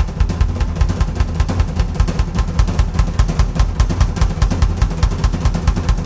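Live drum kit solo: a fast, even, unbroken run of strokes with a heavy bass drum under each.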